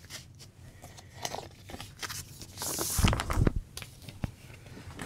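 An LP record jacket being handled: rustling and scraping of the cardboard sleeve and plastic cover, with a hissing slide about two and a half seconds in and a few low bumps just after.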